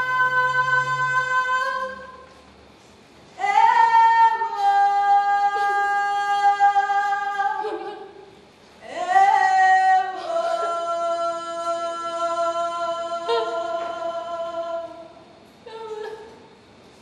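A woman's voice singing unaccompanied in long held notes: one ends about two seconds in, the next runs from about three to eight seconds and another from about nine to fifteen seconds, each sliding up into its pitch. A short vocal sound comes near the end.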